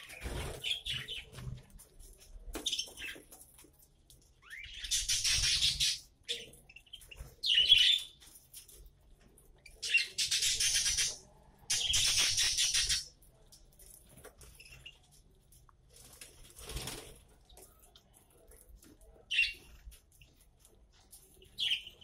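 Budgerigars chirping in short calls, with three loud flurries of wing-flapping about a second long each.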